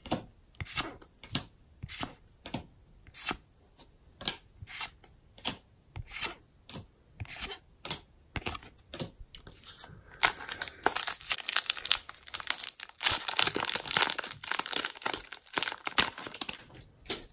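Trading cards being moved to the back of the stack one at a time, a short dry card-on-card slide or flick about twice a second. Then, from about ten seconds in, the foil wrapper of a Pokémon booster pack crinkling and tearing as it is ripped open.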